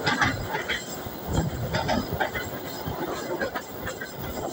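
Passenger train coaches running along the track on a curve, heard from beside the moving train: a steady rumble of wheels on rails with irregular clacks and knocks from the wheels and couplings.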